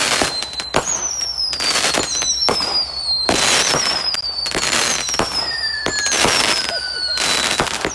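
Fireworks going off in quick succession: repeated sharp bangs and crackle, with high whistles that slide down in pitch, one starting about every second.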